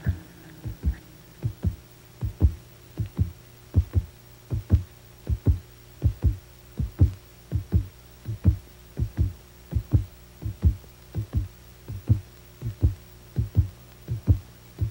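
Heartbeat sound, a steady lub-dub double thump repeating a little faster than once a second, over a low steady hum.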